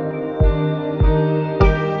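Background instrumental music: sustained ambient tones over a soft, steady low beat about every 0.6 seconds.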